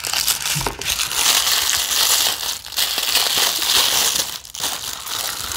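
Crinkly plastic wrapper from a toy's blind-box packaging being crumpled and handled, a dense continuous crinkling with two brief lulls.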